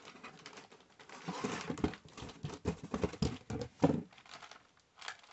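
A plastic-wrapped Oreo cookie package and a cardboard box being handled: a run of rustling, crinkling and light knocks, the loudest knock about four seconds in.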